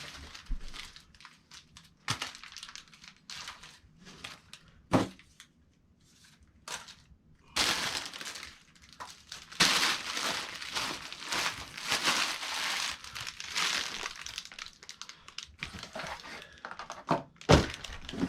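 Cardboard packaging being handled while a kit is unpacked: scattered knocks and clicks, then a long stretch of continuous rustling from about halfway through until near the end.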